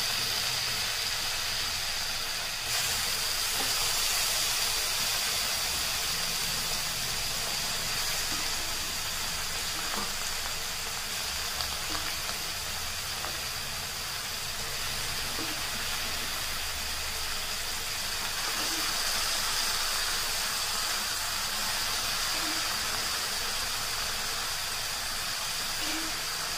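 Boiled pieces of sheep blood with onions frying in a hot iron kadai: a steady sizzling hiss.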